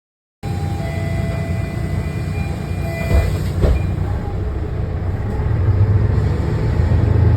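Steady low rumble of a moving vehicle, starting suddenly just after the beginning and growing a little louder toward the end, with faint steady whining tones over the first three seconds and two short clicks a little past three seconds.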